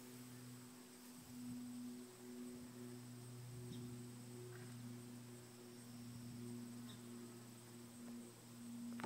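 Domestic cat purring: a faint, steady low hum with brief breaks.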